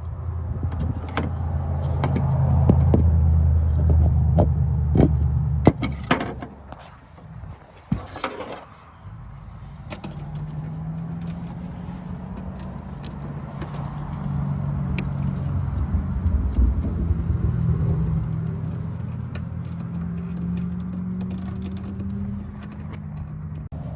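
A motor vehicle engine running with a low, steady hum. The hum is loudest over the first six seconds, fades briefly, and returns about ten seconds in with a slowly rising pitch. Over the first eight seconds there are sharp clicks and taps as an LED turn-signal bulb is pushed into its socket.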